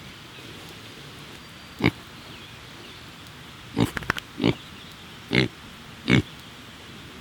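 Pigs grunting in short, separate grunts, several close together about four seconds in, as they nose at and start on a pile of comfrey leaves.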